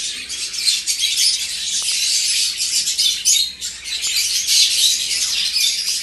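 A colony of budgerigars chattering, with many birds chirping and squawking at once in a dense, continuous high-pitched chorus.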